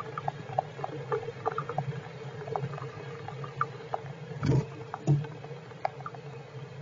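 Heavy rain pattering on the squirrels' shelter: irregular drops tick on it, with two louder knocks about four and a half and five seconds in, over a steady low hum.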